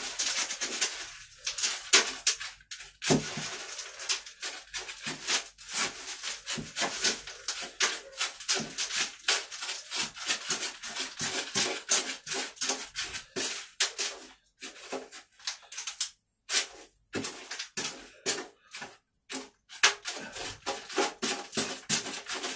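Hands scooping and working potting compost in a bucket: dense, irregular rustling and gritty crunching, with a few short pauses past the middle.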